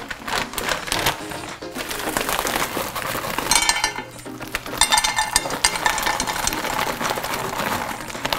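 Frozen blueberries shaken from a plastic bag, dropping and clicking into a baking dish in many small hits, more densely in a couple of spells, over background music.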